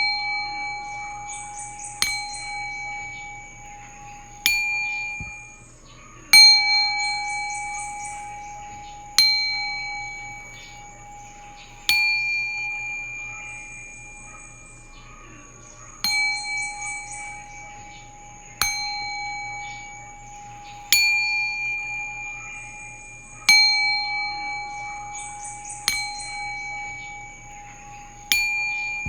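A metal bell struck repeatedly for a sound bath, about every two to four seconds. Each strike rings with the same clear tone and higher overtones and fades before the next strike.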